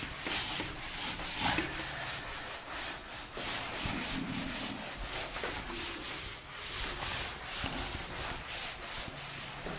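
Scratchy writing strokes, a few each second: a pen or marker tip being drawn over a writing surface as chemical formulas are written out.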